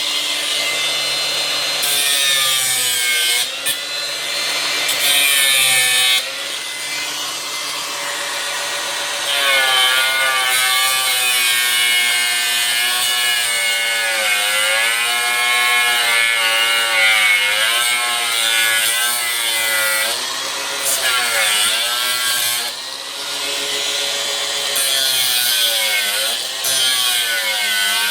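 Angle grinder cutting into the plastic case of a sealed lead-acid car battery: a steady cutting hiss over the motor's whine, which dips in pitch and recovers again and again as the disc bites under load.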